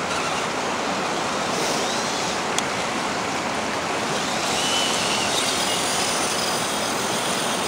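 Steady rush of river water flowing over rock shoals and rapids.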